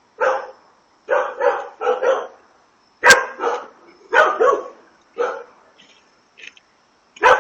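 A dog barking repeatedly: about ten short barks, several in quick pairs, with brief pauses between runs.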